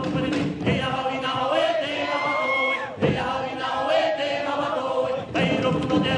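A group of voices chanting together in a Tahitian song that accompanies the dance, sung in phrases with short breaks about halfway through and near the end.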